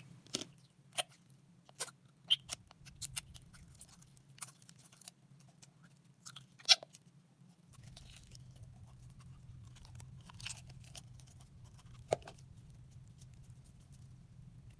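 Slime being handled, giving irregular sharp clicks and pops, the loudest about six and a half seconds in.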